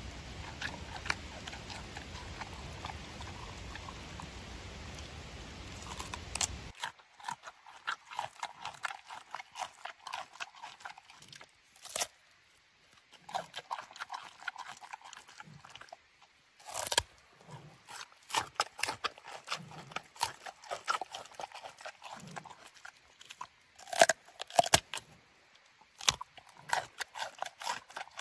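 Giant panda eating pumpkin: moist chewing with frequent sharp crunches and clicks as it bites and munches the chunks. For the first several seconds the chewing sits under a steady hiss; after that it is clearer and closer.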